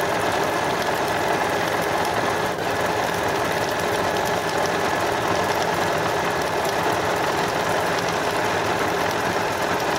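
Janome DC 4030PR electronic sewing machine running steadily at speed, its needle stitching a dense decorative satin-stitch pattern into fabric.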